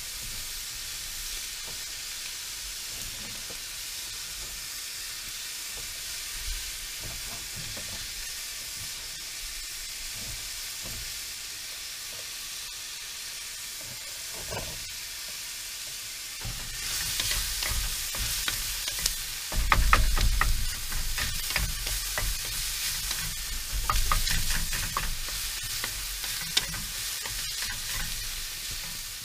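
A hash of sausage, eggs, shallot and brook trout frying with a steady sizzle in a nonstick pan on a portable camp stove. Just over halfway through, a wooden spatula starts stirring and scraping the pan, and the sound turns louder with quick clattering strokes.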